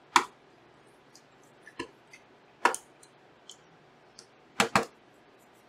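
Small screwdriver and screws on a graphics card being worked: sparse sharp metal clicks and taps, with two close together near the end. The screws are being put in and turned one corner at a time in a cross pattern.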